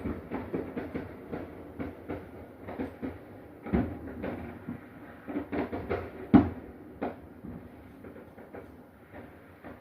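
Neighbourhood fireworks going off in a rapid, irregular string of pops and bangs, with two louder bangs about four and six seconds in, thinning out toward the end.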